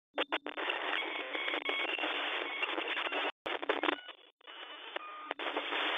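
Static sound effect like a detuned radio or TV: a narrow-band hiss with a few faint tuning tones, cutting out sharply once about halfway through and dipping for about a second before coming back steady.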